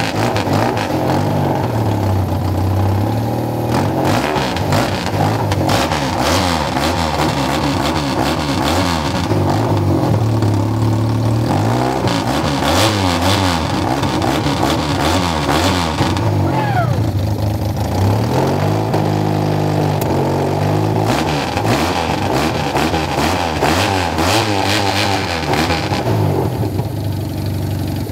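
Custom motorcycle engine with an open bellmouth intake being revved again and again, its pitch climbing and falling back with each twist of the throttle.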